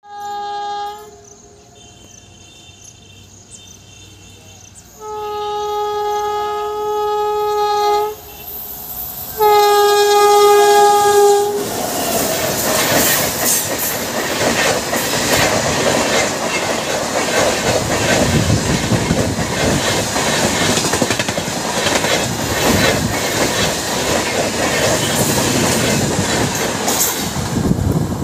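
WAP-7 electric locomotive sounding its horn in several blasts, the last two long and loud, followed by the train's coaches rushing past close by with a rapid clatter of wheels over rail joints.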